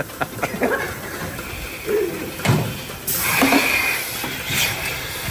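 Milking-parlour equipment: scattered knocks and clicks of metal, then from about three seconds in a sudden steady hiss of air from the vacuum milking units.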